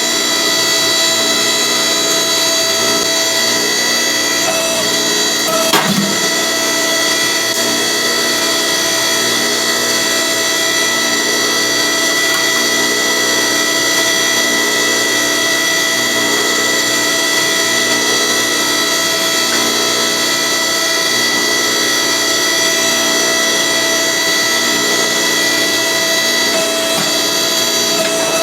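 Steady drone of a motor-driven shop machine, a whine held at several fixed pitches without change. A single knock about six seconds in.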